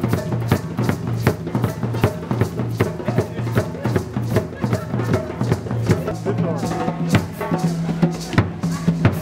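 Drum-driven music with a quick, steady beat and a held bass line that shifts to a higher note about six seconds in.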